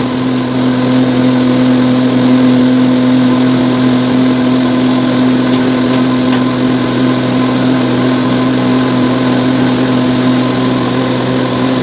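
A vehicle engine running at a steady speed, a constant low hum with no revving.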